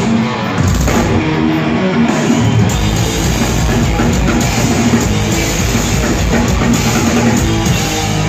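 Live rock band playing loud, with electric guitar and a drum kit, heard from the audience.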